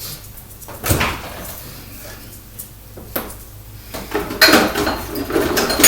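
Household rummaging: a cupboard door or object knocking once about a second in and again around three seconds, then a busier run of clatter and bumps over the last second and a half.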